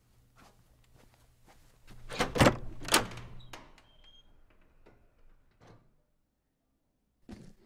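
An interior door being moved and knocked: two loud knocks about half a second apart two to three seconds in, a few fainter knocks after, and another short knock near the end.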